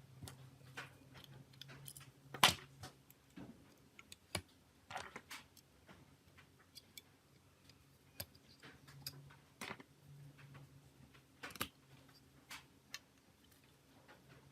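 Small tools and parts of a Nokia E71 phone being handled: irregular sharp clicks and taps, the loudest about two and a half seconds in, over a faint low hum that comes and goes.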